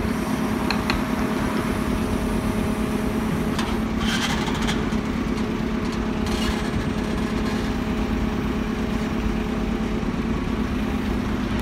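Heavy diesel engine of construction machinery running at a steady speed, with two brief noisier bursts about four and six seconds in.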